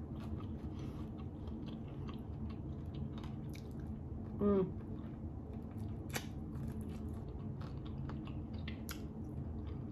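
Close-up chewing and biting of barbecue chicken, with many small wet mouth clicks and smacks. A short hummed voice sound comes about halfway.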